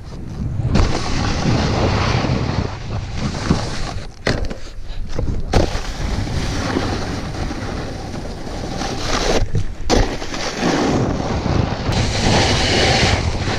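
Snowboard sliding and scraping over snow, with wind rushing over the action camera's microphone. The noise drops out briefly a few times.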